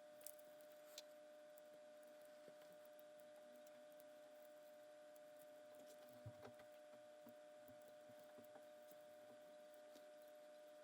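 Near silence: a faint steady electrical hum with a few soft clicks, two in the first second and a short cluster around six seconds in.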